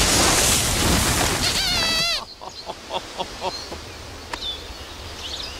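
Loud crashing and clattering, the tent being knocked down, that cuts off suddenly about two seconds in, with a short warbling squeak from Sweep's squeaker voice just before the cut. After that there is a quiet outdoor background with a few bird chirps.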